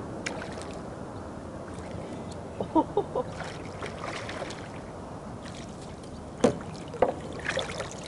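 Water lapping and sloshing around a plastic fishing kayak, with a few sharp knocks about two-thirds of the way through.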